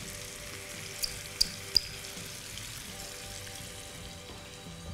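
Spinach and leek frying in olive oil in a pan, a steady soft sizzle, with three light clicks a little over a second in.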